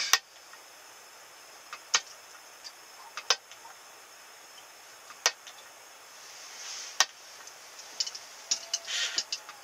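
Sharp isolated clicks and ticks from handling a wakasagi ice-fishing rod and its small electric reel, one every second or two, with a quick run of clicks near the end. A faint steady hiss lies underneath.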